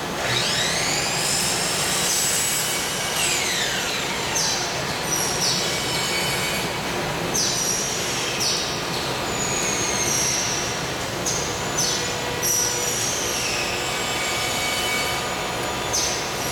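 3M All Weather Flashing Tape 8067 being peeled and rubbed down with gloved hands over a vinyl window frame, making repeated high squeaks and squeals, about one a second, some sliding up or down in pitch.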